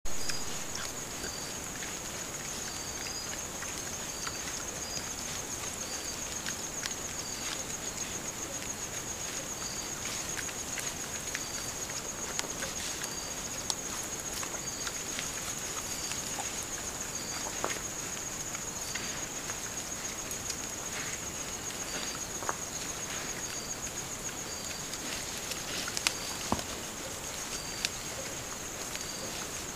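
A steady, high-pitched insect chorus, with a second insect chirping about once a second. Beneath it come scattered soft rustles and snaps as feral hogs root and step through dry leaf litter, with a couple of sharper snaps near the end.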